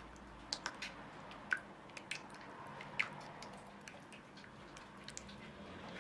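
Silicone spatula stirring a wet mixture in a wooden bowl: soft squishing with irregular sharp clicks and taps.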